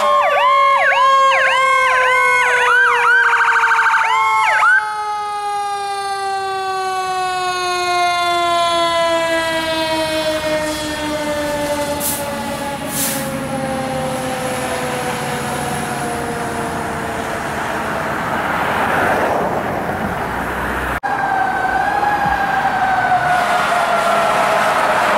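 Fire apparatus sirens. For the first few seconds an electronic siren yelps rapidly over a long siren tone that winds slowly down in pitch. After a cut near the end, a slower rising-and-falling wail siren sounds.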